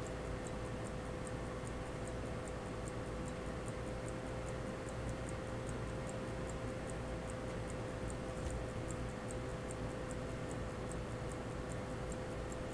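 Pocket watch movement ticking steadily and rapidly, its balance running freely while the hairspring stud is adjusted, with a steady hum underneath.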